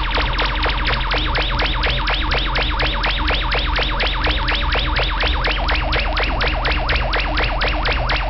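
Buchla and Eurorack modular synthesizer soundscape: rapid rising chirps, about five a second, over a steady low drone and held tones.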